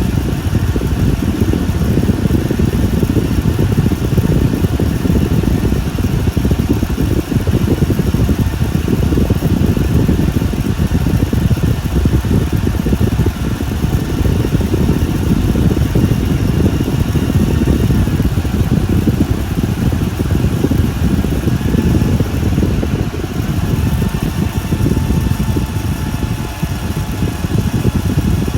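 Car engine idling with its air conditioning running, a steady low rumble.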